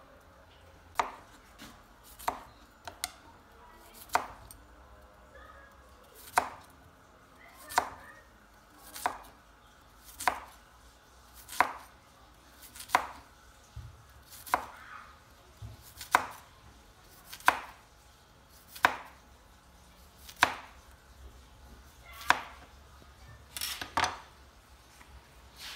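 Kitchen knife slicing a peeled potato into rounds on a plastic cutting board: a sharp knock of the blade on the board roughly every second and a half.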